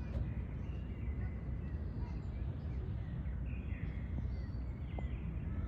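Outdoor ambience dominated by a steady low rumble, typical of wind on the microphone, with a few faint bird chirps about two, four and five seconds in.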